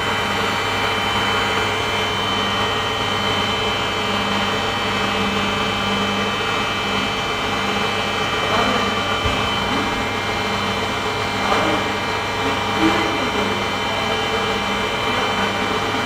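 A steady mechanical hum with several constant tones, with a few brief faint knocks around the middle.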